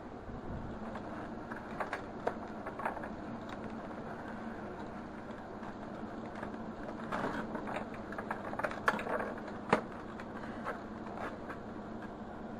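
Scattered plastic clicks, taps and scraping as a mechanic's pickup tool is worked into a clogged vacuum cleaner to fish out the blockage, over a steady low hum. The handling is busiest in the second half, with two sharp clicks near the end.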